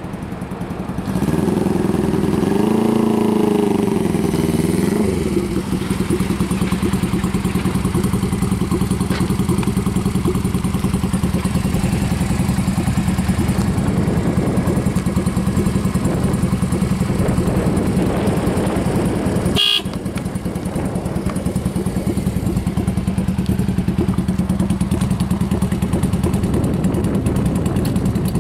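Honda Benly CB125T's air-cooled four-stroke parallel-twin engine running, revved up and down a few times in the first seconds and then idling steadily. A short sharp sound about two-thirds of the way through.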